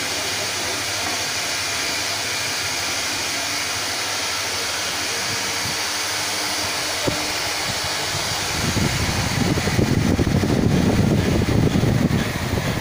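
Steady rushing hiss of moving air. Near the end a louder, rougher low rumble comes in for about three seconds, then drops away.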